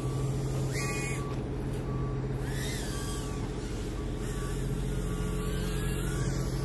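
Brushless motors of an Eachine Trashcan micro quadcopter whining up and down in short bursts during punch-outs. Under them run a steady low vehicle engine hum and a reversing alarm beeping about once a second.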